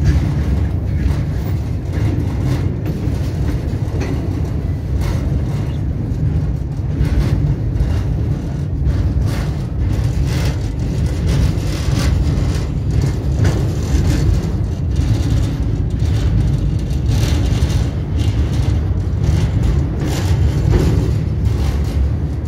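Moving train heard from an open door: a steady low rumble of the wheels on the track with scattered clicks and knocks from the running gear.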